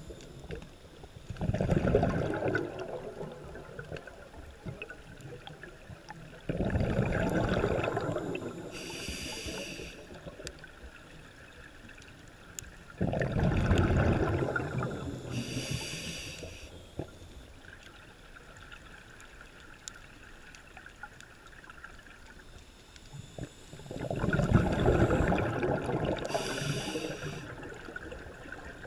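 Scuba diver breathing through a regulator underwater: slow breaths, each a loud rush of exhaled bubbles followed by a short high hiss of the regulator on the inhale, about four breaths in all.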